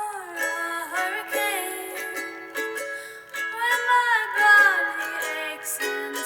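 A song: a sung melody over plucked-string accompaniment, thin and without bass from an added vinyl-record effect.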